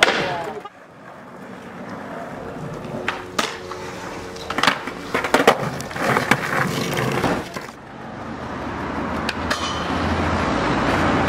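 Skateboard wheels rolling over paving slabs, with several sharp clacks of the board being popped and landing about three to six seconds in. The rolling noise cuts off and builds up again twice.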